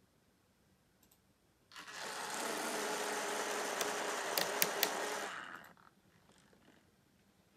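An N gauge model train running on the track: a steady small-motor hum with rolling noise, starting suddenly about two seconds in and fading out after about four seconds, with a few sharp clicks partway through as the wheels cross the rail joints or points.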